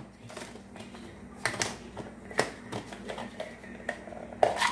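A few scattered plastic clicks and knocks as a small pull-cord hand chopper is handled and its lid is taken off.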